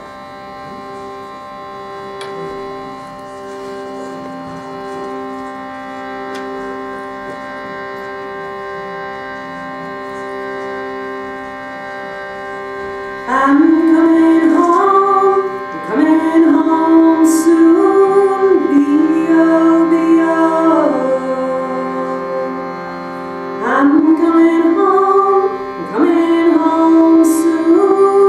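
A shruti box drone, its bellows pumped by hand so the steady chord swells and eases every second or two. About halfway through, a woman's voice begins singing a slow melody of long, gliding held notes over the unchanging drone.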